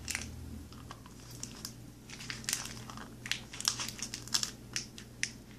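A small plastic glue bottle crinkling and clicking as it is twisted in the hands and bitten at the cap in an attempt to get it open: a scatter of short, sharp crackles through the whole stretch.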